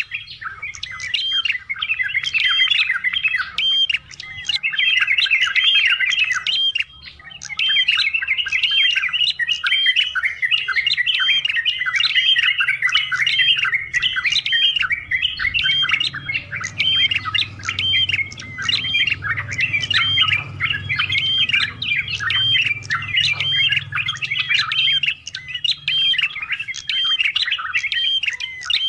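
Yellow-vented bulbul singing a long, fast stream of chattering, bubbling notes, a full song packed with varied phrases, with a couple of brief breaks early on.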